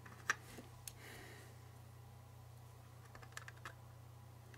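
A few faint, sharp clicks and taps, the clearest just after the start, as small brass exhaust stacks are handled and pressed into the holes of a model locomotive hood shell.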